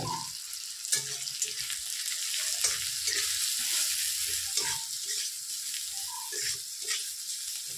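Onion, tomato and freshly added ground spices frying in a little oil in a pan: a steady sizzle, with scattered knocks and scrapes as the mix is stirred.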